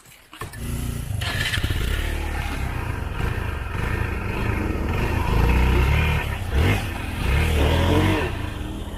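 A motorbike engine running hard under load as it climbs a dirt off-road track, with gravel or dirt scraping. It starts suddenly about half a second in and swells louder twice.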